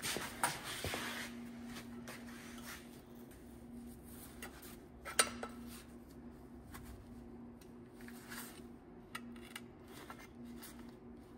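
Scattered light metal clinks and taps of hand tools on engine parts as a sensor is tightened into a new intake manifold, with one sharper click about five seconds in. A faint steady hum runs underneath.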